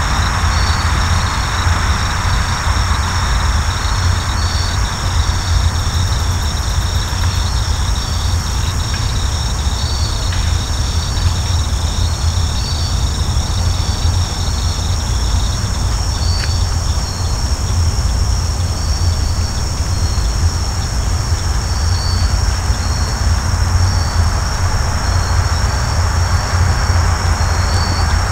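Evening insect chorus: steady high trilling with a pulsing chirp, over a loud, steady low rumble.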